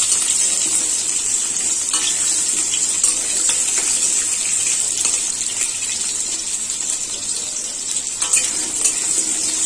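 Potato chunks sizzling steadily in hot oil in a metal kadai, with a few faint scrapes and taps of a metal spatula as they are stirred.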